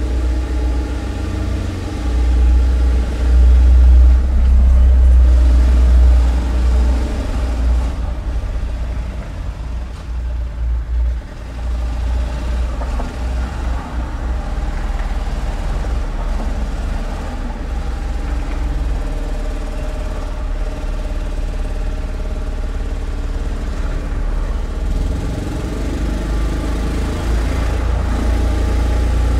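Construction site noise: a heavy machine's engine running with a deep rumble, swelling louder for a few seconds near the start and easing briefly around the middle.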